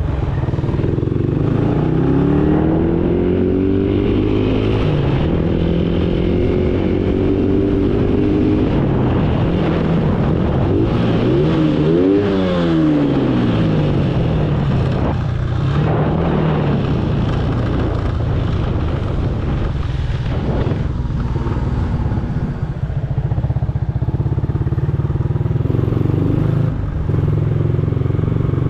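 Motorcycle engine running while riding, its pitch rising and falling with the throttle, most sharply about twelve seconds in, over steady road and wind noise.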